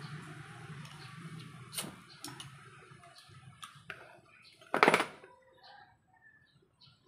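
Aluminium mess tin and its folding wire handle clinking as the tin is picked up: a few light clicks, then one sharp metal clank about five seconds in.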